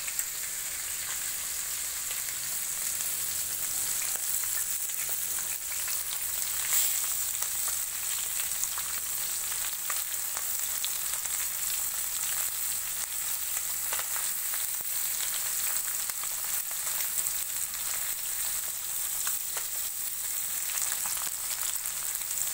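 Spice-coated fish pieces frying in hot oil: a steady sizzle with scattered crackles and a few louder pops.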